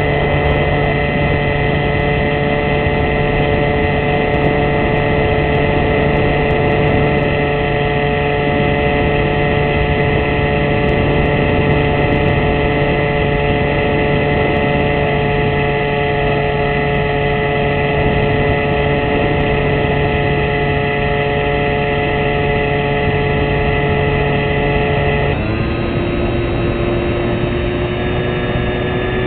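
Motor and propeller of a radio-controlled fixed-wing UAV running steadily, heard from a camera on board the plane, with a steady rush of air. About 25 seconds in the pitch drops suddenly, then creeps slowly back up.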